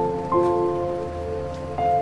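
Background music of slow, sustained notes, with a new chord coming in about a third of a second in, over a soft rain-like hiss.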